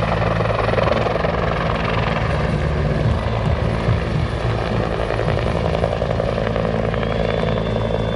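RCAF CH-146 Griffon, a Bell 412-based twin-turbine helicopter, hovering with its rotor and turbines running steadily. A faint high warbling tone comes in near the end.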